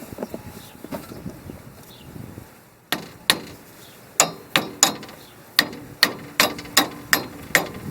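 A hammer tapping the hub's metal dust cap onto the spindle, about a dozen sharp metallic taps starting about three seconds in, each with a brief ring.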